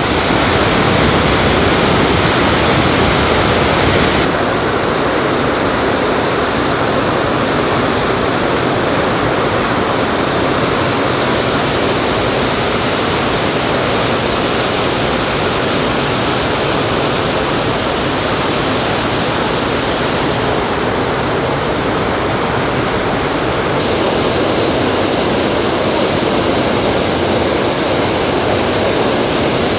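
The Rhine Falls waterfall: a loud, steady rush of falling water.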